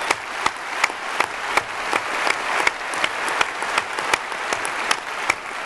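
Audience applause: a dense wash of clapping, with sharper close-up claps standing out about three times a second.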